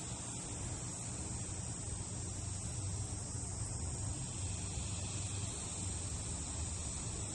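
Steady background ambience: a constant high-pitched hiss over a low hum, with no speech or music.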